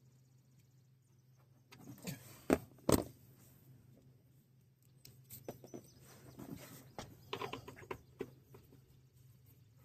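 Tools and parts being handled: two sharp knocks about two and a half and three seconds in, then a spell of lighter clicks and rattles, over a low steady hum.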